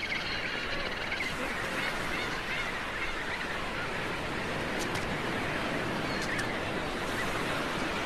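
Steady outdoor background noise, an even hiss, with a few faint ticks about five and six seconds in.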